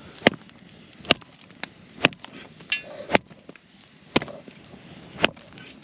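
A dry, weathered branch being struck repeatedly to snap it into firewood: sharp wooden knocks about once a second, six strong strikes with a couple of lighter ones between.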